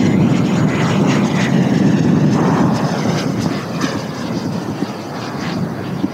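Electric ducted fan of a Sebart Avanti S model jet, a 90 mm WeMoTec Midi Evo fan driven by a HET 700-68 motor, running at full speed in a flypast. The sound eases a little about three and a half seconds in as the jet draws away.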